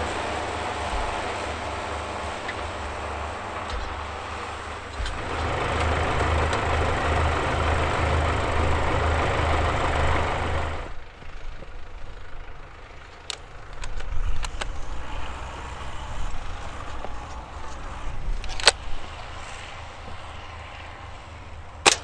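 Belarus MTZ-82 tractor's four-cylinder diesel engine running as it drives through snow, getting louder about five seconds in. The sound cuts off about halfway through and is followed by a few sharp air-rifle shots, the loudest two near the end.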